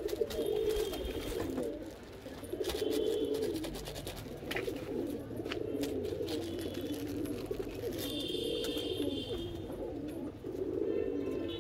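Pigeons cooing continuously, with the crinkle and rustle of a plastic bag being opened and handled.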